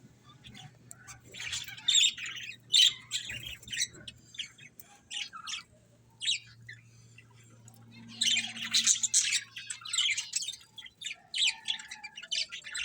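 Budgerigars chirping and squawking in quick, high-pitched calls, busiest about a second and a half in and again from about eight seconds, over a faint steady low hum.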